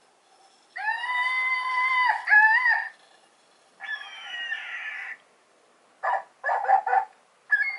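A sound-making toy ball plays recorded animal calls: a long, steady pitched call about a second in, a wavering call around four seconds, then several short yelps near the end.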